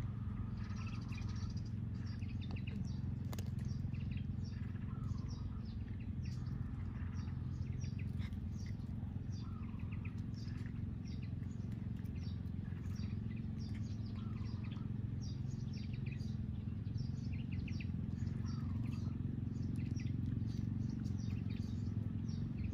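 Small birds chirping over and over, short high calls with a few lower whistles, over a steady low background rumble.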